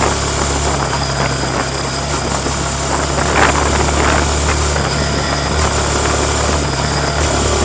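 Yamaha MT-15's 155 cc single-cylinder engine running at a steady pace through its stock exhaust while being ridden, holding an even, unchanging note.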